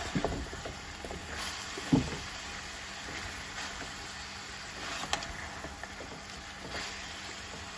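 Mixed vegetables sizzling in a pan while a spatula stirs them, with a dull knock of the spatula against the pan about two seconds in and a light click about five seconds in.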